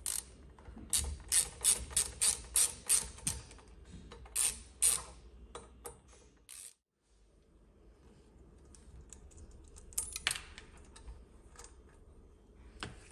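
T10 Torx screwdriver undoing small retaining screws: a quick run of sharp ratchet-like clicks that stops abruptly about seven seconds in, followed by a few scattered clicks and taps.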